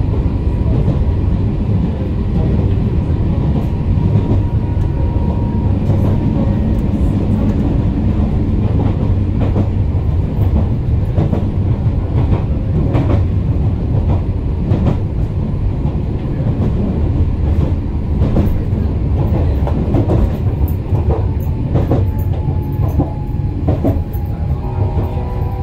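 Tram running along its track: a steady low rumble of steel wheels on the rails, broken by scattered sharp clicks and knocks. A thin steady whine sounds in the first few seconds.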